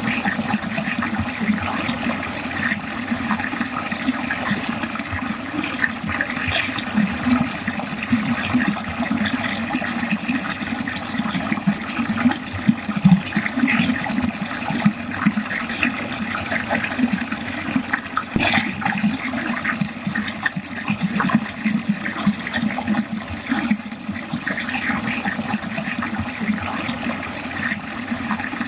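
Water running steadily down a drain, an unbroken rush of flowing water.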